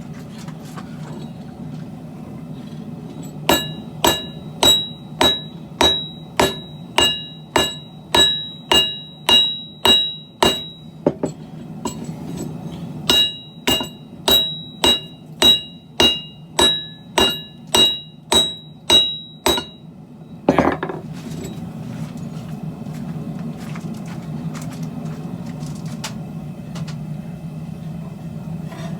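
Hammer blows on a steel billet over an anvil while forging Damascus steel: two runs of about a dozen strikes each, roughly two a second, every blow ringing high and metallic, with a short pause between the runs. A single louder noisy burst follows the second run, over a steady low hum.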